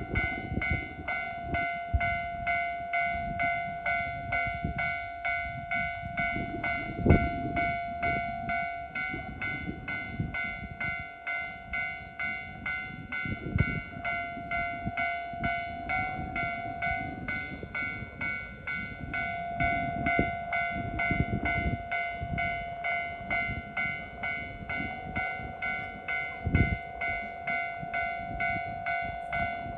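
A level-crossing warning bell ringing in a fast, even rhythm, over a low rumble as a diesel snowplow train approaches.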